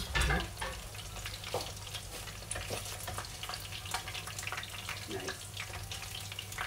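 Food sizzling in a frying pan on a gas stove while it is stirred with a wooden spatula: a steady crackle with many scattered sharp ticks and a louder knock of the spatula at the start.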